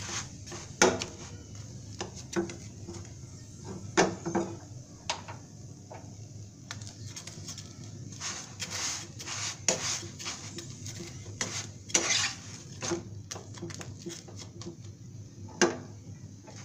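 A white plastic spatula scraping, pressing and tapping against a non-stick frying pan while a paratha fries in it: a scatter of short scrapes and clicks, with several sharper knocks spread through.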